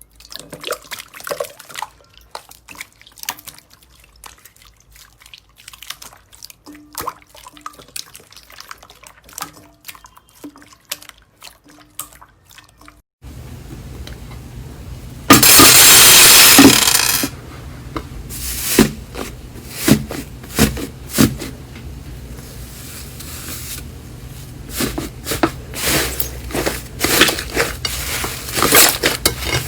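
Slime being squeezed and poked by hand, giving sticky wet pops and clicks, quiet at first. About 13 seconds in it changes to a louder slime sound with a low hum beneath it: a loud rush of noise lasting about two seconds, then a run of sharper pops and crackles.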